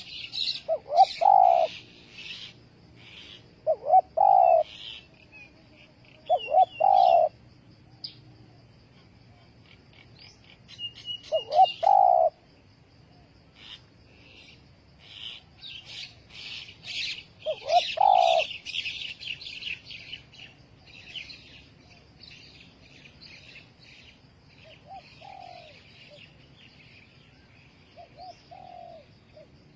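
Spotted dove cooing in short phrases every few seconds, the loudest sound; the coos are fainter near the end. Small birds chirp rapidly over it.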